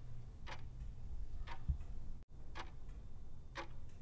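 Clock-ticking sound effect counting down a quiz answer timer: four sharp ticks, about one a second, over a faint low hum.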